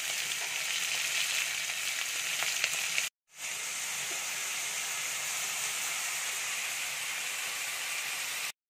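Hot oil sizzling steadily in a kadai as whole prawns fry; the sound drops out for a moment about three seconds in, then resumes as cubed potatoes sizzle in the oil.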